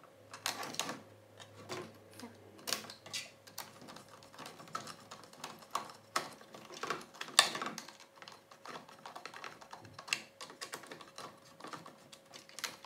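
Irregular clicks and taps of 3D-printed plastic housing parts being handled and screwed together with a hand screwdriver, with a few sharper knocks among them.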